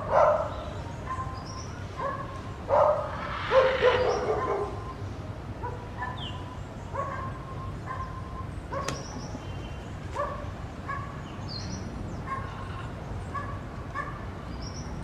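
Dogs barking and yelping: a loud bark right at the start and a louder run of barks about three to four seconds in, then fainter short yips roughly once a second.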